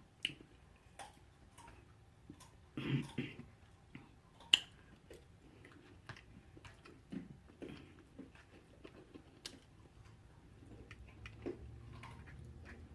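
Close-miked eating sounds: chewing and wet mouth clicks scattered throughout. A short louder noise comes about three seconds in, and a sharp click at about four and a half seconds in is the loudest moment.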